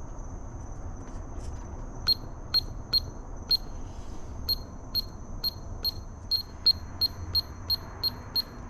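A radio-control transmitter's button beeps: a run of short, identical high beeps, about two a second, then after a brief pause quickening to about three a second, as the steering endpoint adjustment is stepped through.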